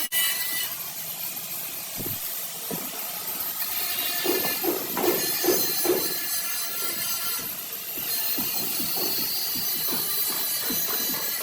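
A power tool, likely an angle grinder, working the car's sheet-metal body, giving a steady high whine over a harsh hiss, with a run of short rapid knocks a few seconds in.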